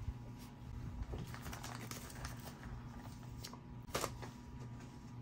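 Hands handling plastic coin packaging: soft crinkling and small taps, with one sharper click about four seconds in.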